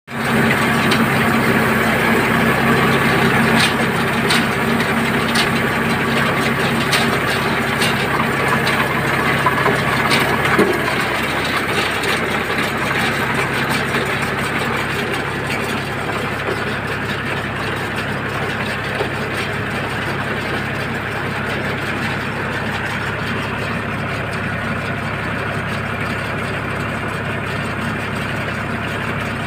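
Tractor engine running a Redlands straw baler through its PTO shaft, the baler's pickup turning over straw, with sharp metallic ticks over the first ten seconds. After about eleven seconds the steady engine hum gives way to a more even, noisier rumble.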